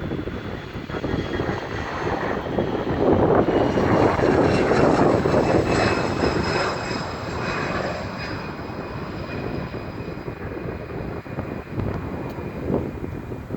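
Bombardier CRJ-200's twin GE CF34 turbofans at takeoff power going past. The jet rumble swells to its loudest a few seconds in, with a faint whine sliding down in pitch, then eases off as the jet moves away.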